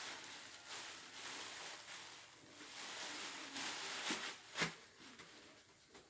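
Thin plastic shopping bag crinkling faintly as a hand rummages inside it, with a couple of sharper rustles a little past four seconds.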